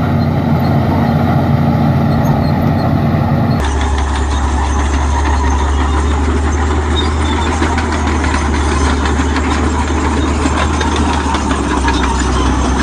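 Heavy bulldozer diesel engine running steadily under load while ploughing. About three and a half seconds in the sound switches abruptly to a deeper, steadier drone with fast clattering over it.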